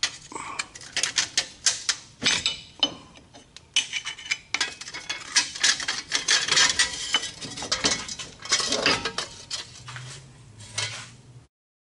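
Screwdriver and hands working a loosened, rust-stuck wheel bearing hub assembly out of a Dodge Ram 4x4's steering knuckle: a run of metal clinks, knocks and scrapes, busiest in the middle, stopping shortly before the end.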